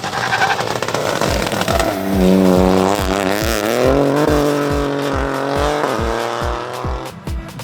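Opel Corsa Rally4 rally car's turbocharged three-cylinder engine revving hard, its pitch wavering up and down, mixed with background music with a steady kick-drum beat.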